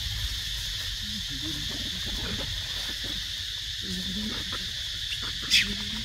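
Steady high-pitched drone of insects with low rumble beneath it. A short, sharp high squeak comes about five and a half seconds in and is the loudest sound.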